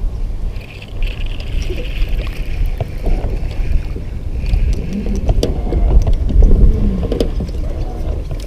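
A spinning reel whirring as a small fish is reeled in and swung aboard, with scattered handling clicks, over a steady low rumble.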